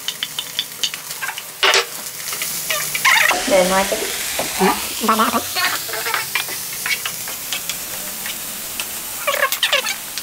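Onion and green and red peppers sizzling in a frying pan with the minced-meat filling as they are stirred, the utensil scraping and clicking against the pan many times.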